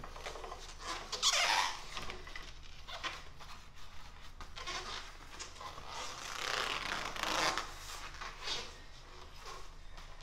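Hand-cranked ring roller bending a 3/16 by 1 inch flat steel bar: squeaking and creaking of the rollers and crank, with the bar grinding between the rolls, coming in uneven swells as the handle is turned. The loudest swells come about a second in and again around six to seven seconds in.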